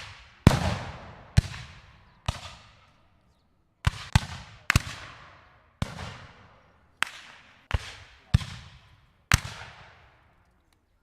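Rifle musket shots fired at random, irregular intervals: about eleven single reports, some in quick pairs, each trailing off in a long echoing decay.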